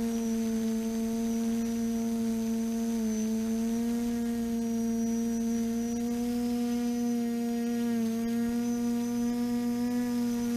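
TBS Discovery quadcopter's brushless motors and propellers humming steadily at one pitch as it hovers, heard close up through its onboard camera. The pitch dips slightly twice as the throttle eases.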